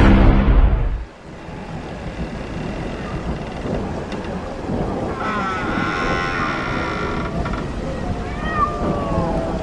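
Horror sound effects: a deep boom that cuts off about a second in, then a steady rushing noise, a wavering high wail in the middle, and a cat meowing near the end.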